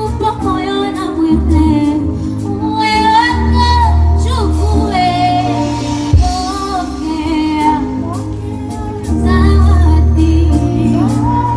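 A woman singing live over an amplified backing track with heavy bass, with a single sharp knock about six seconds in.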